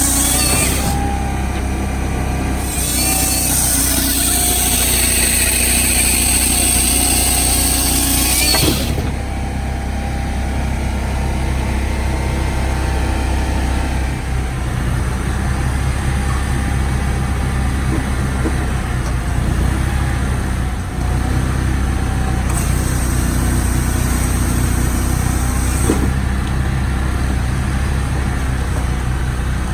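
Firewood processor running steadily under its engine's low drone, with loud high hissing noise over it for about six seconds in the first third and again for about three seconds past the middle.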